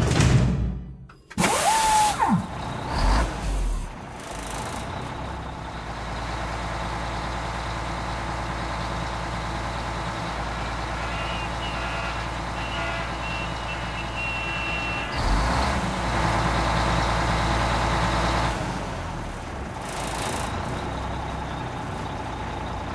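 Truck sound effects: several loud clunks and a short falling squeal in the first few seconds, then a truck engine running steadily, with faint high beeps coming and going in the middle.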